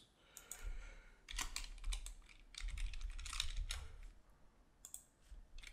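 Typing on a computer keyboard: several short runs of keystrokes with brief pauses between them.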